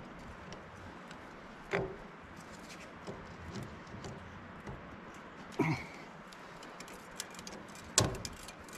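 Hand tools clinking and knocking against the steel hydraulic lift cylinder of a John Deere 650J crawler dozer while it is taken apart for repacking. Scattered light clicks come with three sharper knocks, the loudest near the end.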